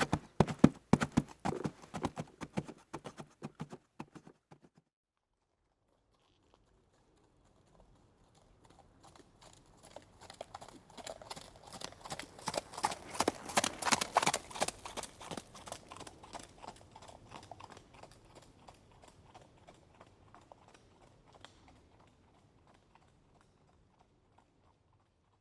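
Horse hooves clip-clopping in quick, even strikes that fade away within the first few seconds. After a pause, hoofbeats approach, are loudest about 14 seconds in, and fade away again, like a horse passing by.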